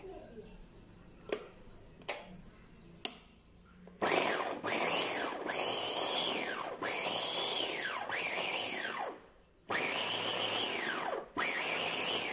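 A 250-watt Orpat electric vegetable chopper chopping green beans. A few light clicks as the top is pressed, then about four seconds in the motor and blade start whirring in pulses, the whine rising and falling about once a second. It stops briefly near the middle, then runs in two more short bursts.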